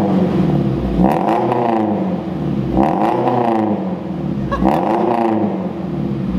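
Subaru BRZ's flat-four engine running through a newly fitted valved center-exit straight-pipe exhaust, with the valve closed. It is revved three times in quick succession, about two seconds apart, each rev rising in pitch and falling back toward idle.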